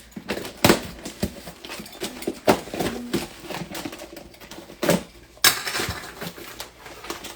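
Irregular clicks, taps and rustling from a package being handled and opened.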